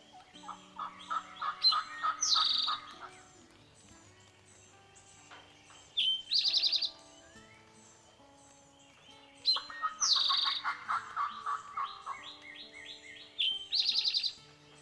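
Dawn birdsong in spring woods. One bird repeats a short, loud, buzzy call that falls in pitch about every four seconds, another gives two runs of quick repeated notes lasting about two seconds each, and other small chirps fill the gaps. Faint soft music plays underneath.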